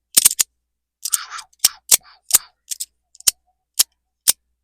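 Modusworks Rapt fidget slider worked by hand: its magnetic plates click sharply into place a dozen or so times, and between about one and two seconds in the grooved plates scrape briefly across each other with a sword-like "shing".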